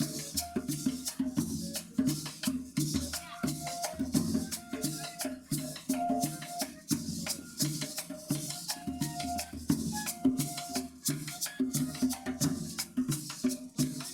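Colombian gaita music played by a children's ensemble: a cane-flute (gaita) melody over steady drumming and a fast-shaken maraca.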